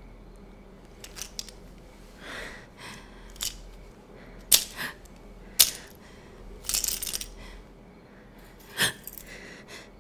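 Cloth rustling and small sharp clicks and taps as a cloth and items are handled at a box, the two loudest clicks about a second apart near the middle.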